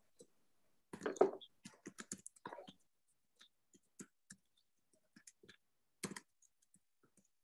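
Typing on a computer keyboard, picked up by the computer's own microphone: a quick run of key clicks about a second in, then scattered single taps, one louder about six seconds in.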